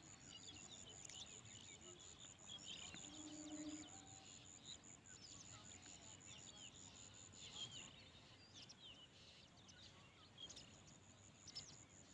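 Small birds chirping, many short quick chirps overlapping, over a high, evenly pulsing insect trill that breaks off briefly about eight seconds in. A brief low call comes about three seconds in.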